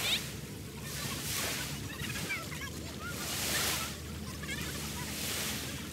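Small sea waves breaking and washing up a sandy beach, a surging hiss that swells and fades about every two seconds, with faint distant voices.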